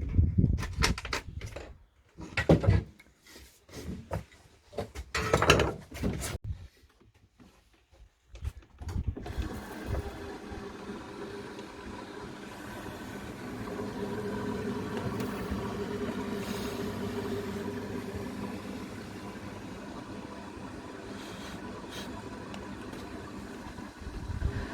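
Irregular knocks and clatter from handling, then, about nine seconds in, an Ariston washing machine starts running with a steady hum over a rushing noise for the rest of the stretch, consistent with a test run after its drain pump was replaced.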